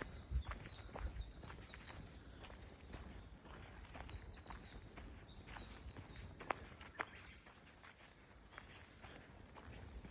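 Steady high-pitched drone of a summer insect chorus, with footsteps crunching on a forest trail. Two sharper clicks come a little past the middle.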